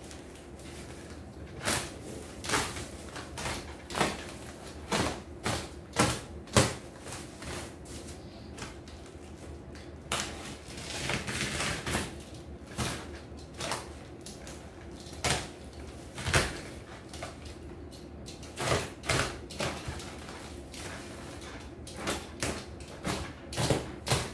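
Plastic-wrapped cardboard shipping box being cut and torn open by hand: irregular scrapes, rips and clicks of wrapping, tape and cardboard, with a longer tearing stretch about ten seconds in.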